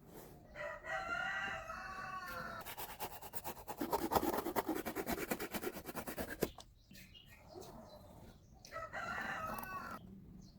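A rooster crowing, once and then more briefly near the end, with a rapid rattle of many clicks a second between the two calls.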